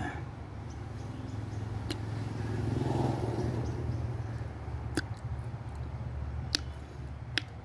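Low rumble of a passing motor vehicle, swelling about three seconds in and easing off. A few sharp clicks come through it as brittle tamarind shell is cracked and peeled by hand.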